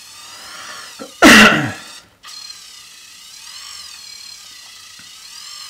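Small electric motor and gearing of a model ship's anchor winch whirring with a thin whine that wavers slowly up and down in pitch as the anchors are raised. A little over a second in, one loud short vocal burst falling in pitch cuts across it.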